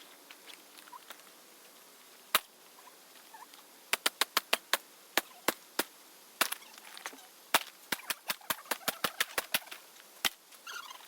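Sharp knocks and cracks of a laptop being struck and smashed. There is a single hit, then a quick run of about five, scattered hits, and near the end a faster run of about ten blows.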